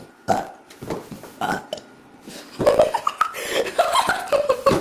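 A person burping loudly. A few short sounds come first, then a longer, louder stretch of voice from about halfway through.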